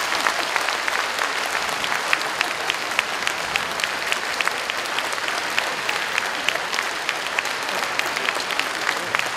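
Audience applauding steadily: a dense, even sound of many hands clapping, with sharper single claps standing out.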